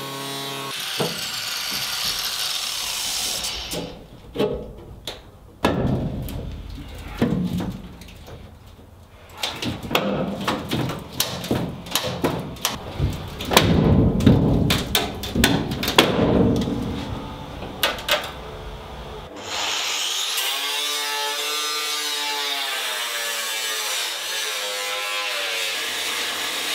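Angle grinder cutting into a van's steel body for a few seconds. It stops, and is followed by a long run of irregular metal clanks and knocks as parts are pulled out. Then the grinder cuts again steadily, its pitch wavering as the load on the disc changes.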